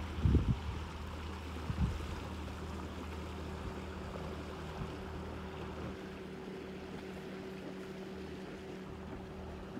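A passing motor boat's engine humming steadily, fading after about six seconds. A few dull thumps in the first two seconds.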